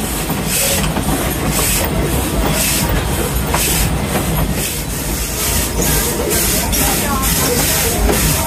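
Steam locomotive Alco No. 18, a 2-8-0, working steadily, its exhaust chuffing about twice a second over the continuous low rumble of the moving train.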